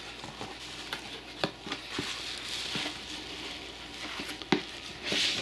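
Bubble wrap and a cardboard box rustling and crinkling as hands lift a wrapped portable tire inflator out of the box. Scattered light clicks run through it, with a sharper tap about four and a half seconds in.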